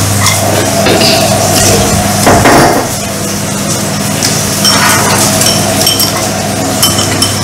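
Chopsticks and spoons clinking and knocking against ceramic bowls and plates as people eat, with a louder clatter about two and a half seconds in, over a steady low hum.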